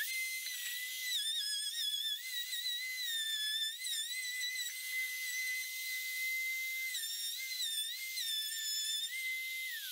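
Palm router running at full speed with a high, steady whine while its bit cuts a circular groove in plywood, guided around a trammel; the pitch sags briefly several times as the bit loads up in the cut. Near the end the router is switched off and the whine begins to fall.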